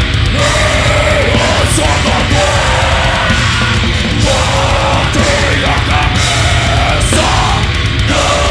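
A heavy metal band playing live: distorted electric guitar and drums under harsh shouted vocals in Portuguese, loud and unbroken.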